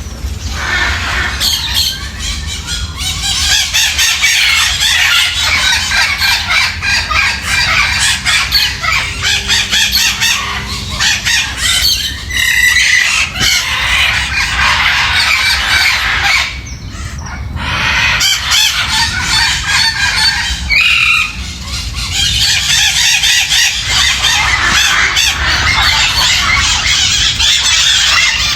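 Small parrots chattering and squawking together, a dense run of overlapping chirps and screeches, with a brief lull about two-thirds of the way through.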